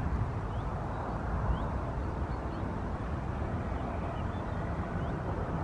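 Steady outdoor wind rumble on the microphone, with faint short high chirps now and then.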